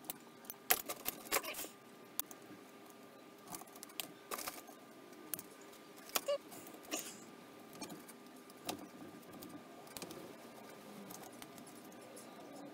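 Screwdriver and small metal parts of a Holley 390 cfm four-barrel carburettor clicking and tapping as the carb is being taken apart: scattered short metallic clicks at irregular intervals.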